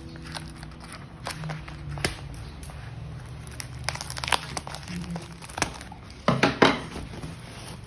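Metallic bubble-mailer envelope crinkling as fingers handle it and pick at its sealed flap, in irregular crackles. There is a louder flurry of crinkling near the end.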